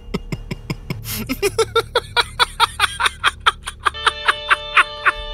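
Background film-score music: a quick, even run of plucked, guitar-like notes, with a chord of held tones coming in about four seconds in.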